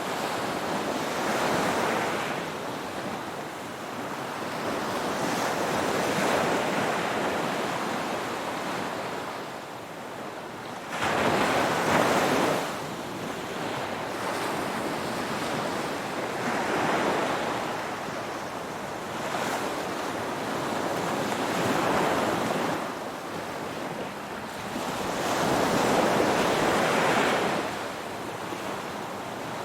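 Ocean waves breaking and washing on the shore, swelling and falling back every few seconds. The biggest surge comes about 11 seconds in.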